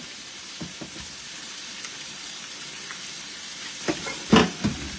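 Carne asada sizzling steadily on a hot comal. A few sharp utensil knocks near the end, the loudest about four and a half seconds in.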